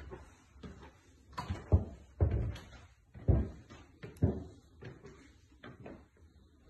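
Footsteps on timber stair treads, a heavy irregular thump roughly every second, giving way to softer steps on carpet near the end.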